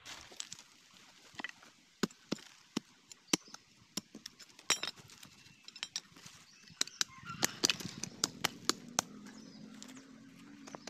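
Small hand hoe chopping and scraping into stony soil around a shrub's roots: irregular sharp clicks and knocks of the metal blade against stones and earth. A low steady hum comes in about two-thirds of the way through.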